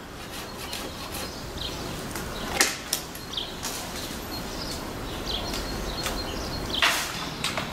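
A lull with the chainsaw off: low outdoor background with a few sharp knocks, two close together about two and a half seconds in and a louder one near the end, and brief high chirps scattered through.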